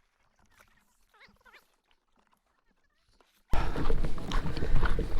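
Near silence with a few faint, high wavering sounds, then about three and a half seconds in a sudden loud, steady rushing noise of wind buffeting the microphone.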